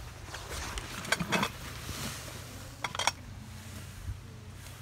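Glass and china dishes clinking as they are handled in a box: two short clusters of light clinks, about a second in and about three seconds in.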